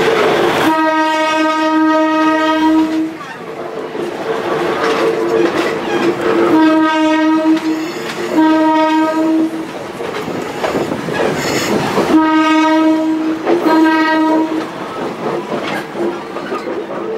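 Train horn sounding five times: one long blast near the start, then two shorter pairs, each on one steady pitch. Between the blasts the slow-moving train's running noise and wheel rumble go on.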